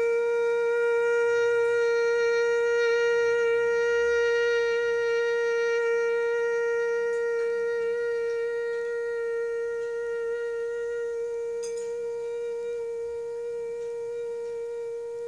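A woman humming one long, steady note with closed lips on a single out-breath, as in bhramari (bumblebee breath) pranayama. The hum gradually gets quieter toward the end.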